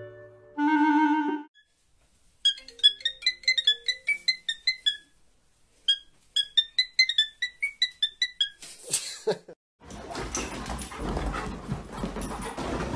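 Cockatiel whistling a tune in two quick runs of short, pitched notes. Before it, a brief musical passage ends; near the end, a rough scuffling noise begins.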